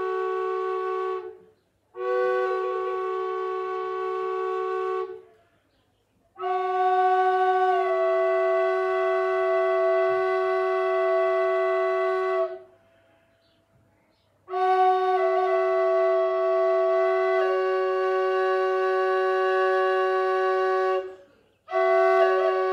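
Native American-style double drone flute played in slow, held phrases: one chamber sounds a steady drone note while the other plays a melody that steps between a few notes above it. The phrases are broken by short breath pauses, after about a second, near five seconds, near thirteen seconds and near twenty-one seconds.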